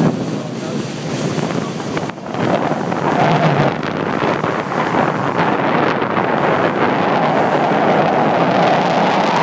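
Wind buffeting the microphone on a moving ferry at sea, over a steady rush of water. The wind drops briefly about two seconds in.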